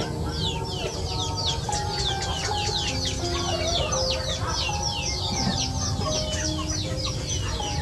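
A flock of young chickens peeping: a dense, unbroken stream of short, high, downward-falling chirps, several a second.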